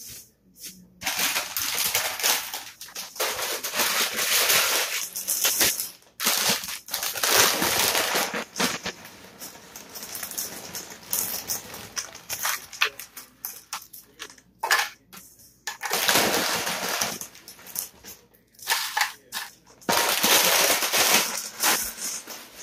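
Crinkly potato chip bag rustling and crackling in several bursts as handfuls of ruffled potato chips are pulled out and put onto plates.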